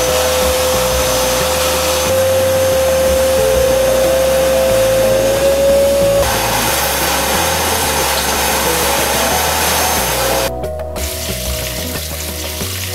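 Wet/dry vacuum cleaner running, its motor giving a steady whine over the rush of suction air, the whine creeping slightly higher in pitch over the first six seconds. About ten and a half seconds in the suction noise drops back and the sound gets quieter.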